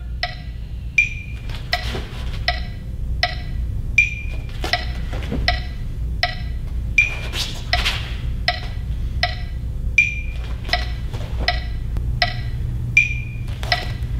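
Background music track with a wood-block tick keeping a steady beat, roughly four strokes every three seconds, over a low steady hum.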